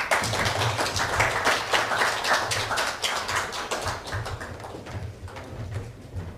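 Audience applauding: a dense patter of many hands clapping that thins out and fades over the last couple of seconds.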